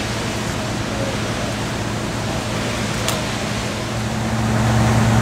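Fire apparatus running at a fire scene: a steady low engine hum under a wash of even noise, growing louder about four seconds in.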